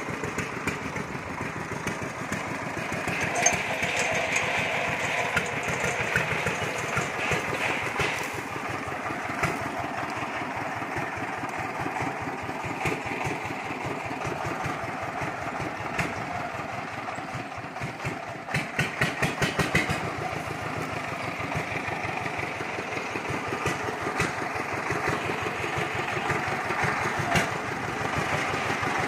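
Horizontal single-cylinder diesel engine of a công nông farm vehicle running under way with a fast, even pulsing beat. It gets louder for a second or two about two-thirds of the way through.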